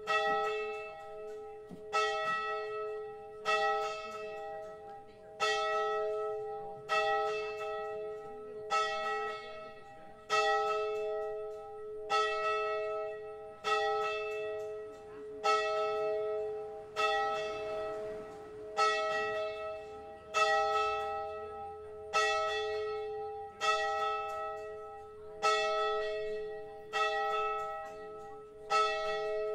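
A single church bell tolling, struck at an even pace of about one stroke every 1.7 seconds, each stroke at the same pitch and ringing down before the next.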